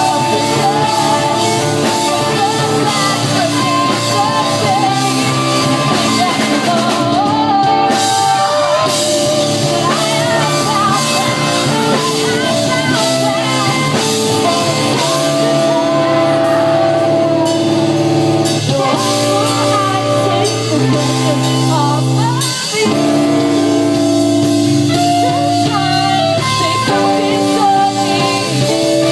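Loud live rock music: a band with singing, electric guitars and a drum kit.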